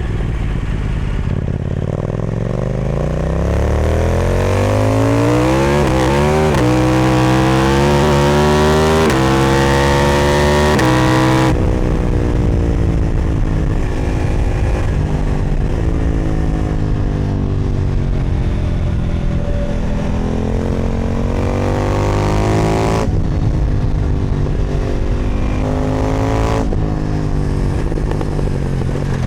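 KTM 990 Duke parallel-twin engine through an Austin Racing exhaust, under way. It accelerates through the gears over the first ten seconds or so, the note climbing with a few step changes. About eleven seconds in the throttle is shut and the note falls away on the overrun. It pulls again, rising, until the throttle is cut once more about 23 seconds in.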